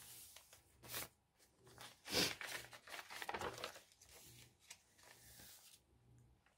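Paper rustling and crinkling in several short bursts as the pages of a handmade junk journal are handled and turned, the loudest about two seconds in.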